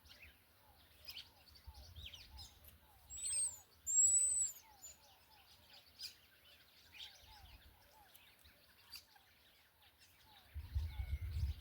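Birds chirping, with two loud, short high whistles about three and four seconds in and a short low falling note repeated about twice a second. A low rumble starts near the end.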